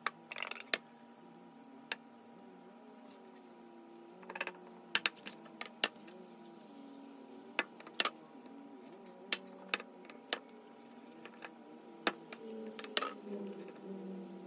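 Light, irregular clicks and taps of a wooden mallet and a metal oil tin being handled and set down on a workbench with gloved hands, with a few short rustles of rubbing. A faint steady hum runs underneath.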